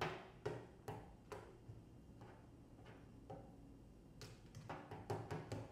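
Metal spoon stirring wet cereal in a bowl, clinking and tapping against its side in faint, irregular light ticks, with a quicker run of them near the end.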